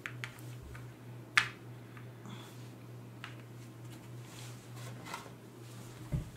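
Light clicks and taps of playing cards and cardboard pieces being handled and set down on a table, the sharpest about a second and a half in, over a steady low hum.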